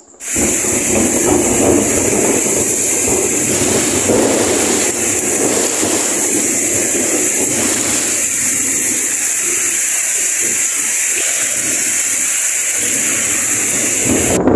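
Heavy tropical rain pouring steadily onto garden plants, a paved path and puddles: a loud, even hiss with a dense low rumble beneath it.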